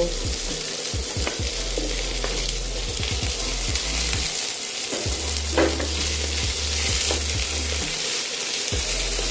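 Sliced potatoes and onions sizzling in hot mustard oil in a nonstick kadai, stirred with a wooden spatula that knocks and scrapes against the pan now and then.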